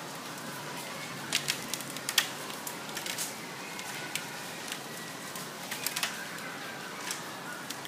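Hailstorm: a steady hiss of heavy rain and hail, with irregular sharp clicks of hailstones striking hard surfaces, some sounding in quick clusters.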